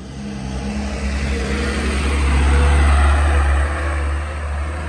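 Yellow medium cargo truck's diesel engine running under load as it drives past close by, getting louder to a peak about three seconds in and then easing as it moves away.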